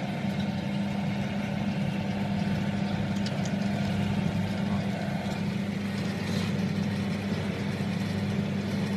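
Electric karipap and dumpling forming machine running, with a steady low motor hum and a few faint ticks.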